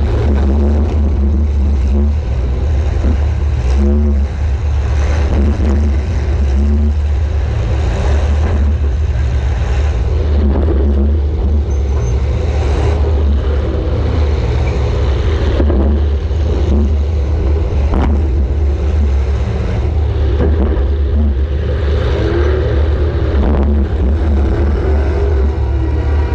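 Welded compact demolition-derby car's engine running hard with a steady low rumble, heard from an onboard camera, broken by several sharp crash impacts, the loudest about 18 seconds in.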